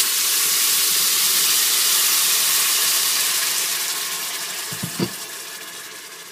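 Blended tomato salsa frying as it pours into a pan of hot oil: a loud, steady hiss and sizzle that slowly dies down. A couple of light knocks come about five seconds in.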